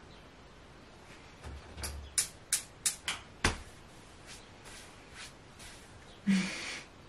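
A quick run of sharp clicks and knocks as the built-in oven's door is shut, followed near the end by one brief louder noise.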